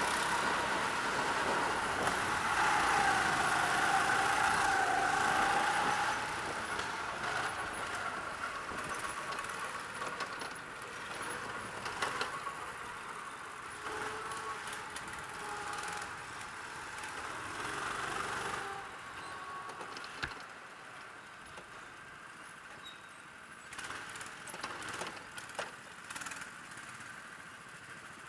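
Go-kart engines running, the kart's own engine buzzing under throttle with other karts close by, then easing off after about six seconds and dropping lower again after about nineteen seconds as the kart slows. A few sharp knocks come near the end.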